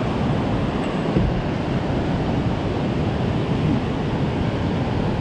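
Steady rushing of turbulent white water pouring out below a dam into the creek.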